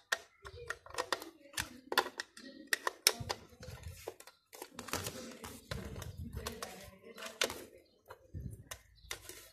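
Clicks and scrapes of a screwdriver driving small screws into a plastic juicer base, with knocks and rubbing of the plastic housing being handled.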